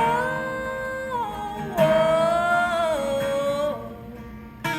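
A woman singing long, sliding held notes to her own strummed acoustic guitar, with strums about two seconds in and near the end.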